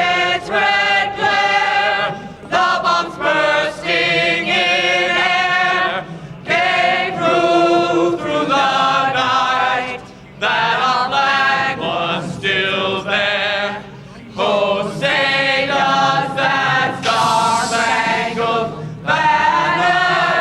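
Voices singing together in long, wavering held notes, phrase after phrase with short breaks between them.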